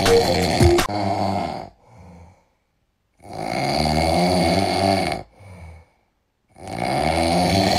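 Snoring, in a slow rhythm: three long, loud snores about three seconds apart, each followed by a short, faint breath.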